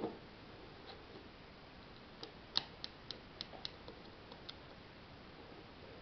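Lego bricks clicking as the plastic puzzle box is handled and its parts slid and pushed: a soft knock at the start, then a quick run of about ten sharp, light clicks in the middle.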